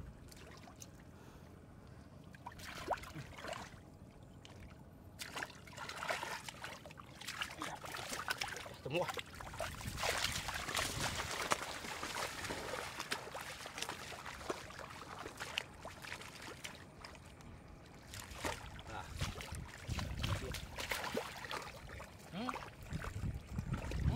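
Splashing and sloshing in shallow muddy water as hands dig and grab at fish in the mud, with irregular wet slaps and splashes that come thickest in the middle and near the end.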